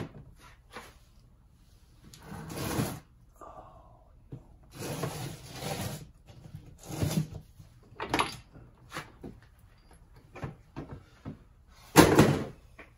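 Parts of a bicycle rear shock being handled on a workbench: a run of separate rustles, scrapes and knocks, the loudest a sharp clatter near the end.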